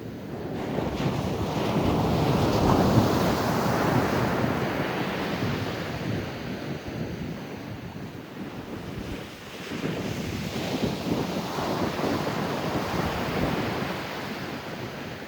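Ocean surf breaking and washing up the shore, in two surges: one building from about a second in and fading off, the next swelling about ten seconds in.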